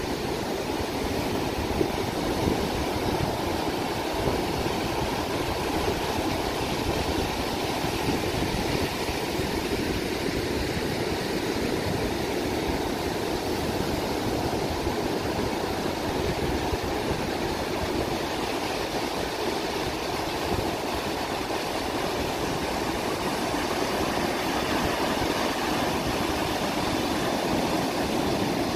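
Steady noise of a boat under way, its engine and the water blending into one even sound.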